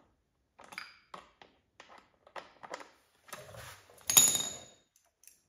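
Light handling clicks and rustles, then a metal hand tool clinking once with a short ring about four seconds in.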